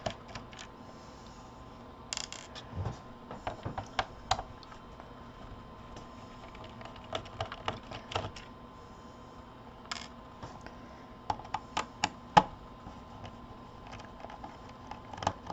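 Irregular small clicks and taps of a screwdriver working the screws out of a laptop's plastic bottom cover, with a few sharper knocks along the way.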